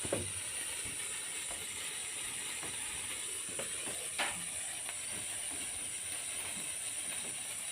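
A firework burning with a steady hiss, with faint scattered crackles and one short, sharp pop about four seconds in. It is still alight.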